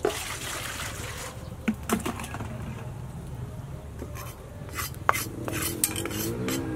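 Cooking utensils and metal bowls being handled: a clatter at the start, then scattered sharp clinks and knocks around two and five seconds in, over a steady low hum.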